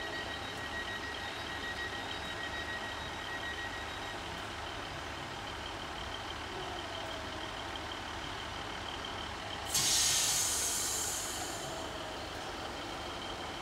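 Class 150 diesel multiple unit running at the platform, its engine making a steady low hum with a thin high whine over it. About ten seconds in there is a sudden loud hiss of air from the brakes, fading over about two seconds, as the train gets ready to pull away.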